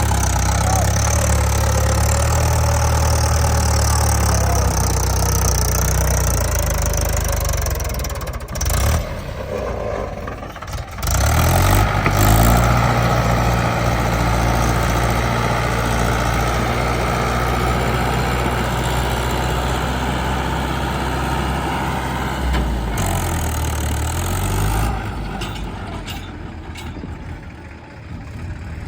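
Heavy diesel machinery running: the engines of a backhoe loader and tractor, revving under load, easing off for a few seconds, then picking up again, and settling lower near the end.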